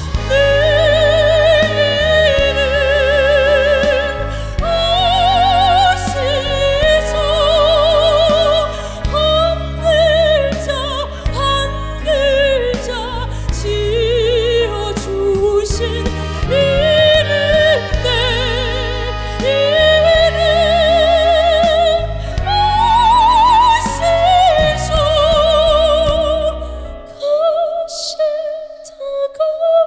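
A woman singing a slow, emotional trot song with heavy vibrato over band accompaniment. Near the end the backing drops away and her voice carries on alone, softer.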